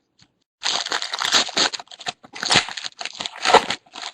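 Foil trading-card pack wrapper being torn open and crinkled by hand, starting about half a second in.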